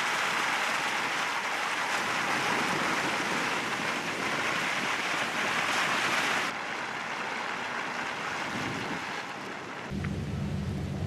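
Steady hiss of wind-driven snow in a heavy blizzard, which drops in level about six and a half seconds in. A low hum starts near the end.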